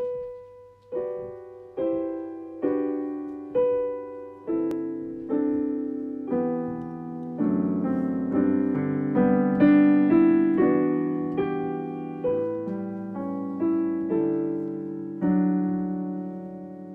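Slow solo piano music: single notes struck about once a second and left to ring away, filling out into fuller, overlapping chords from about four seconds in.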